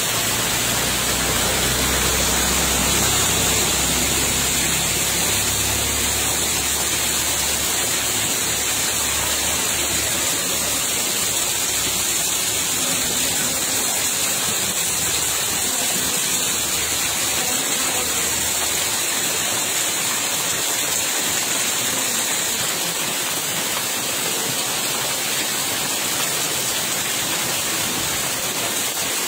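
Steady rush of flowing water running and splashing over the ground.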